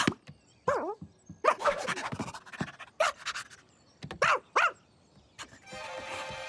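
Cartoon dog vocal effects: a dog gives a string of short yips and barks, each arching up and down in pitch, in small groups with gaps between. Music comes in near the end.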